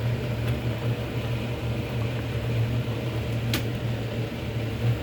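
Steady low hum of a fan-driven kitchen appliance running, with one sharp click about three and a half seconds in.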